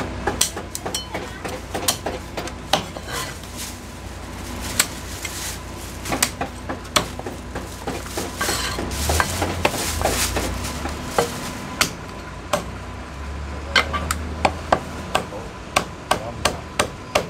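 Chinese cleaver chopping braised goose on a thick round chopping block: sharp, irregularly spaced chops, with a quick run of chops in the last few seconds.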